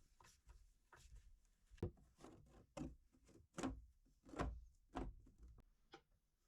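Faint, irregular soft taps and rubbing from hands working at a bench, about half a dozen light knocks spread through.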